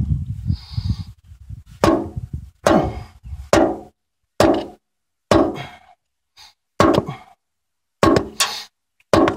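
A hammer striking a Glock field knife about eight times, roughly a second apart, each blow a sharp knock with a short ring, driving the blade down. Low handling rumble comes before the first blow.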